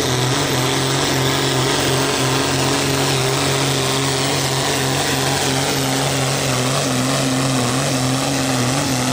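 Engine of an International pulling tractor running hard and steady under full load as it drags the sled down the track. It keeps a constant pitch with slight wavers.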